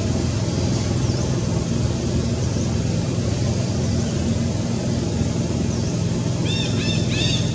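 A steady low motor drone runs throughout, and a run of short, high, arched chirps starts near the end.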